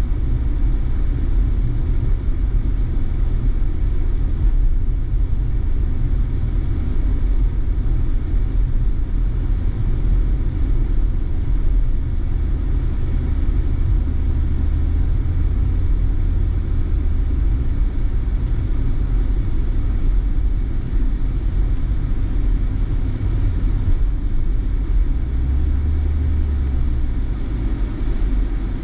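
A car driving along a road: a steady, low rumble of road and engine noise.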